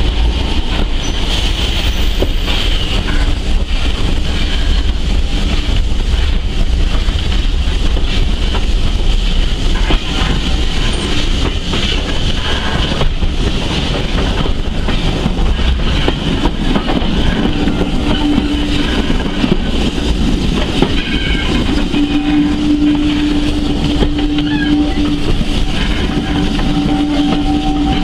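Heritage steam railway carriage running along the track, heard from its open window: a steady rumble with faint rail clatter, and a steady drawn-out tone that comes in about two-thirds of the way through.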